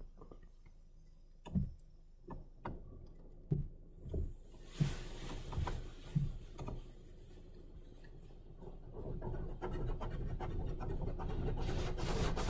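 Futura Revolution automatic car wash, heard from inside the car: cloth wash material slaps and thuds against the body in scattered knocks, then a rushing hiss of spray and scrubbing on the glass builds steadily from about four seconds in.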